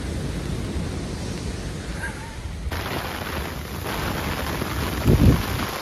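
Strong wind buffeting the microphone, a steady low rumble with a heavier gust blast about five seconds in.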